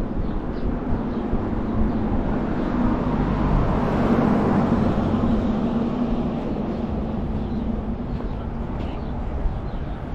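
A motor vehicle driving past on the street, its engine hum and tyre noise swelling to the loudest about four to five seconds in, then fading, over wind rumble on the microphone.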